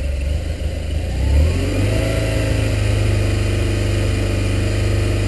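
BMW R1200 GS Adventure boxer-twin engine and exhaust revving up about a second in, then held steady at a higher engine speed.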